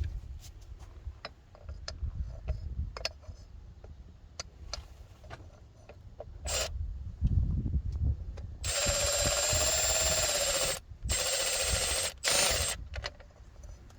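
Light clicks and taps of metal parts being handled, then a cordless electric ratchet whirring in three bursts, the first about two seconds long and the last two shorter, as it runs nuts onto the bracket bolts.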